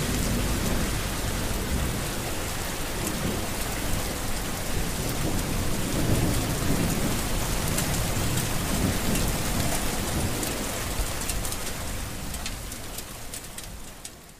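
Steady rain with low rolling thunder, fading out over the last two seconds.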